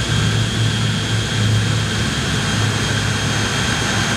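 Boeing B-29 Superfortress's four Wright R-3350 radial engines running with a steady low drone, heard from inside the bomber's nose cockpit.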